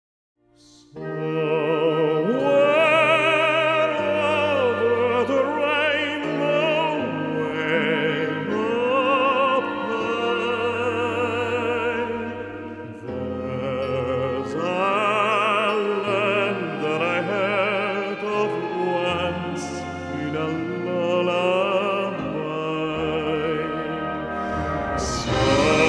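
Operatic singing with a strong, wide vibrato over a low accompaniment whose notes change every second or two. It starts about a second in.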